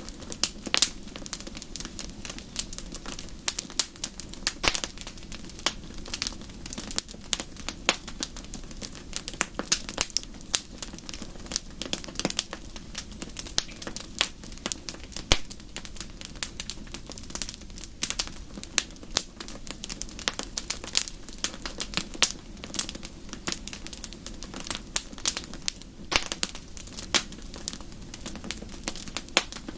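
Wood fire crackling in a fireplace: many irregular sharp pops and snaps over a steady low rumble of the burning fire.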